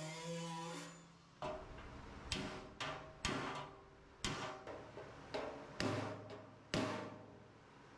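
Hammer blows on the welder's thin steel sheet-metal case as the dents are beaten out, about nine irregular strikes, each ringing briefly. A steady electric buzz cuts off about a second in.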